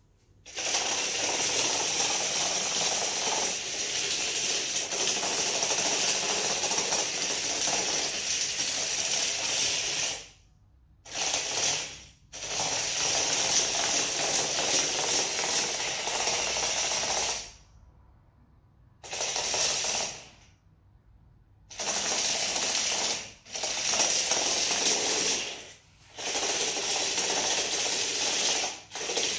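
Small electric gear motors and first-version mecanum wheels of an RC car whirring and rattling as it drives over a wood-look floor. The sound runs in stretches of a few seconds and stops and starts several times as the car is driven and halted.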